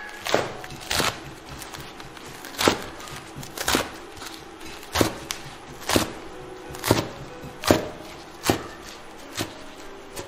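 Chinese cleaver chopping leafy greens on a wooden cutting board: about ten sharp knocks, roughly one a second and unevenly spaced.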